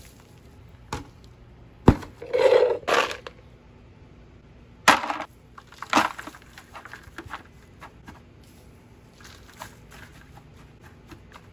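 Straw crackling and rustling as hands pull it apart and push it into a plastic bucket. There is a sharp click a little under two seconds in, louder scrunches around two to three, five and six seconds in, and lighter ticks after.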